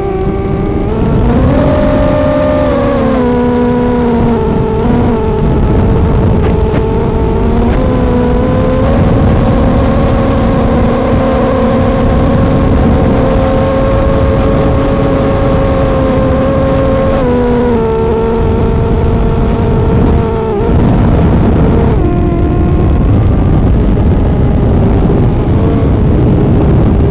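Racing quadcopter's Tiger brushless motors and propellers whining in flight, the pitch rising and falling with the throttle over a rushing noise, with a brief dip about 20 seconds in.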